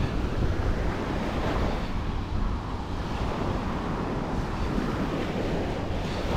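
Ocean waves breaking and washing on a beach: a steady rushing wash of surf over a deep rumble.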